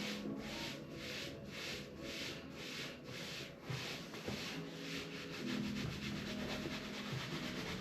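Rhythmic rubbing strokes of hands massaging skin, about two a second, growing fainter about four seconds in.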